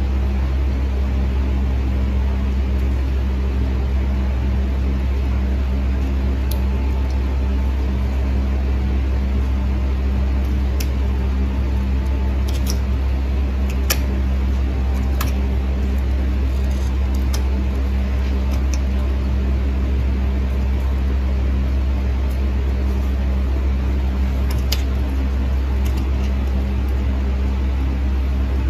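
Steady low motor hum, with scattered sharp clicks of steel nail nippers snipping at a thick, overgrown toenail.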